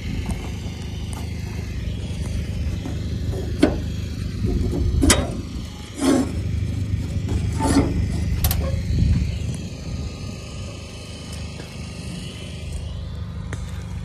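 Rusty corrugated sheet-metal door being pulled open by hand: a handful of sharp metal scrapes and clanks over a steady low rumble.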